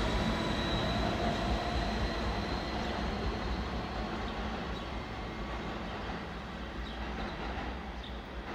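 R160B subway train pulling away and receding, its rumble fading steadily. A thin high tone from the train dies away in the first few seconds.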